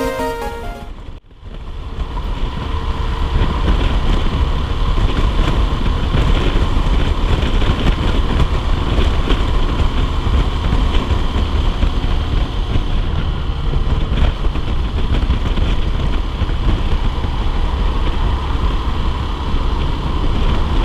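Riding noise from a Honda CBF125R motorcycle in strong wind: a heavy, steady buffeting rumble of wind on the microphone over the noise of the moving bike. It takes over about a second in, as background music ends.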